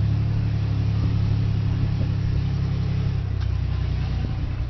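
Sherman Firefly tank's engine running as the tank drives across turf, a steady low drone that eases off and drops in pitch about three seconds in.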